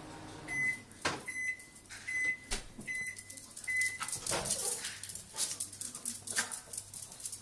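Microwave oven's end-of-cycle beeper sounding five times, about 0.8 s apart. A Yorkshire terrier's claws click and scrabble on the tile floor as it spins in circles, with the scrabbling busiest after the beeps stop.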